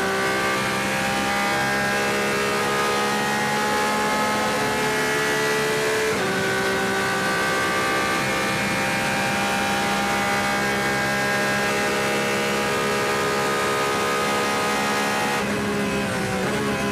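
Porsche 911 RSR's naturally aspirated flat-six racing engine heard from onboard, running hard at speed. Its pitch climbs slowly, drops at a gear change about six seconds in, climbs again, then falls away near the end as the car comes off the throttle.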